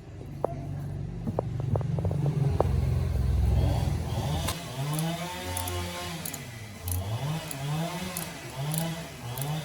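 Small motorcycle engine running. It builds up over the first few seconds, then is revved up and down again and again, its pitch rising and falling about once a second.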